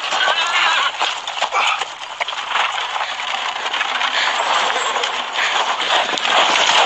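Several horses galloping on dry ground: a dense, continuous drumming of hoofbeats.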